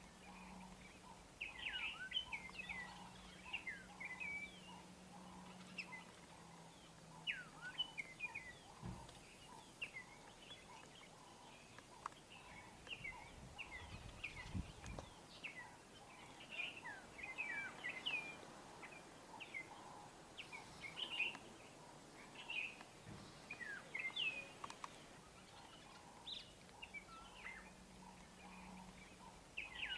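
Several small birds chirping and twittering continuously in short, quick calls. A faint low hum is present for the first few seconds and again near the end, and there are a few dull low bumps.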